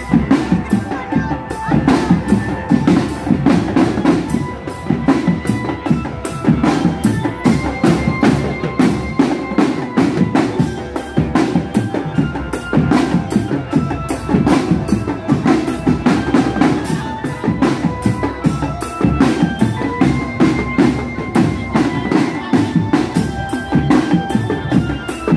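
Marching drum band playing a sholawat tune: bass drums and snare drums beat a steady, dense rhythm under a melody of held notes that step up and down.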